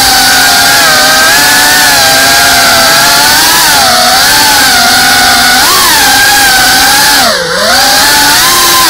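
FPV drone's brushless motors and propellers whining loudly, heard from the drone's own camera, the pitch rising and falling with the throttle. Near the end the pitch and level dip sharply for a moment as the throttle is chopped, then climb back up.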